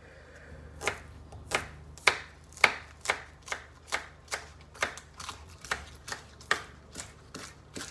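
Kitchen knife chopping scallions, a steady run of short sharp strokes about two a second.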